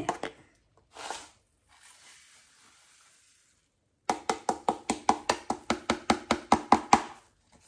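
Caster sugar softly poured into a small metal mesh sieve, then the sieve tapped rapidly against the mixing bowl, about six taps a second for some three seconds, each with a short ring, to sift the lumpy sugar through.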